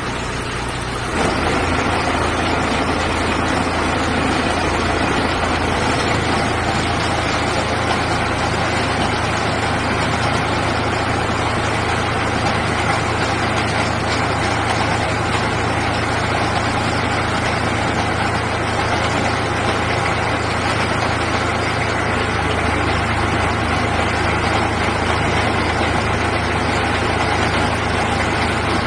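Engine of an XYX-3 core drilling rig running steadily, driving the rig's spindle and drill rod. It grows louder about a second in, then holds at a steady level.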